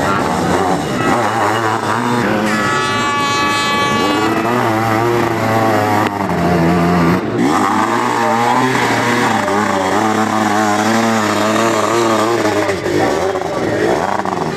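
Engines of several sidecar motocross outfits revving up and down together as they race by, one held at a steady high pitch briefly about two and a half seconds in.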